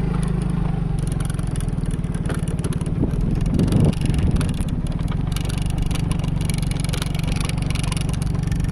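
Yamaha Mio scooter's single-cylinder four-stroke engine running steadily at low riding speed, with a louder rattling stretch about three seconds in.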